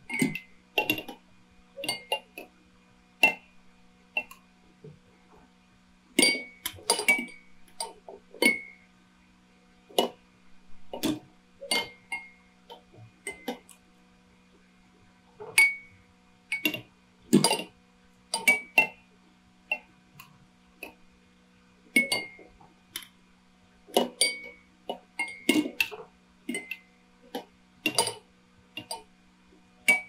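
Many drinking-bird toys tipping forward to drink, their heads and beaks tapping and clinking against their water glasses in an irregular scatter of clicks, some clinks ringing briefly. A faint steady low hum runs underneath.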